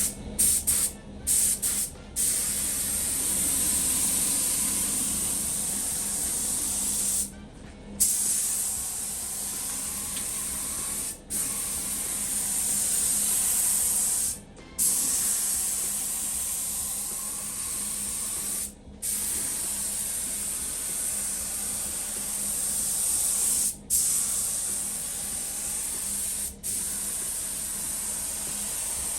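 Primer being sprayed in long hissing passes. The spray stops briefly every few seconds, about eight times, and then starts again.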